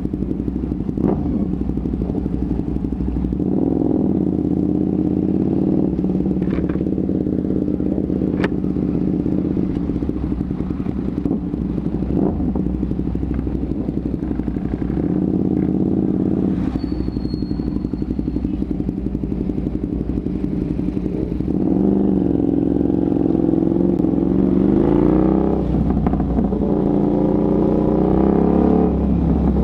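KTM 990 Super Duke's V-twin engine running under way, its pitch climbing as it accelerates a few seconds in and again near the end, and steady in between.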